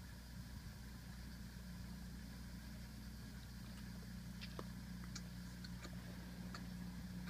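Steady low electrical-sounding hum, with a few faint light clicks and ticks in the second half.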